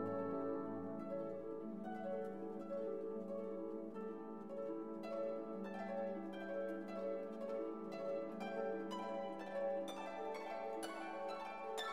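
Instrumental background music: plucked string notes over held lower notes, the plucking growing busier near the end.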